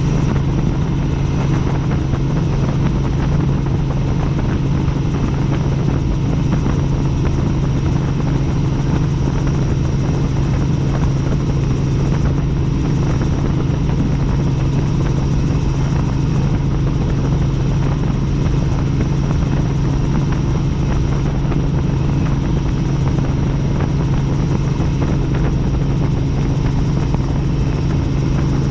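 Helicopter in flight: a loud, unchanging drone of rotor and engine, with a faint steady high-pitched tone above it.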